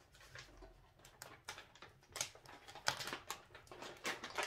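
Hands rummaging through packed items in a wooden box: irregular rustling of wrapping material and light knocks as things are moved about.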